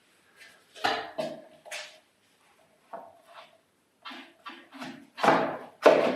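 A cut floorboard being worked into place against a door frame: a string of short knocks and scrapes, the two loudest near the end, as it seats with a snug fit.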